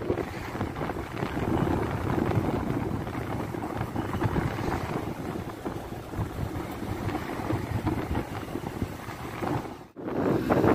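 Wind buffeting the microphone of a moving motorcycle, with its engine and road noise underneath. The sound drops out suddenly for a moment near the end.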